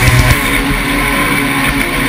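Off-road race buggy's engine running hard at speed, heard from onboard, as the rock music drops out shortly after the start.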